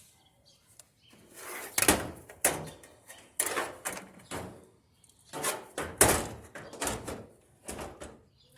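Irregular knocks and clatter of dryer cabinet and console parts being handled as the control board is fitted back into place, with two louder thunks about two seconds in and about six seconds in.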